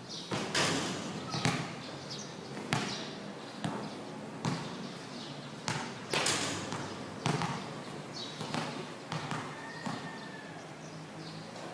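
Basketball bouncing on a hard court during play: about a dozen irregular thuds, some louder and ringing briefly.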